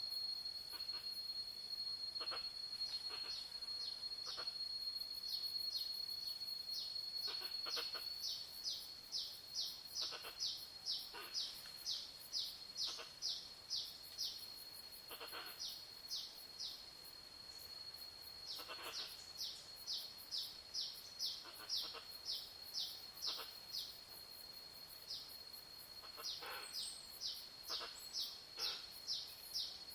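Jungle chorus of insects and birds: a steady high-pitched insect whine for the first several seconds, then rhythmic short high chirps about two a second that pause twice, with scattered falling bird calls throughout.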